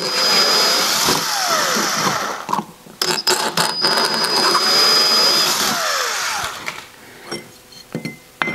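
Cordless drill with a 7 mm bit enlarging the existing 6.5 mm bolt holes in a metal oil breather plate, running in two bursts of about two and a half and three and a half seconds with a short pause between; the motor's pitch shifts as each run winds down. A few light knocks follow as the plate is handled.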